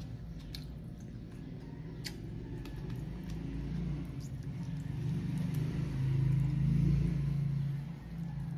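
A low engine rumble of a passing motor vehicle that builds to its loudest about six to seven seconds in, then drops off near the end, with a few faint clicks from eating by hand.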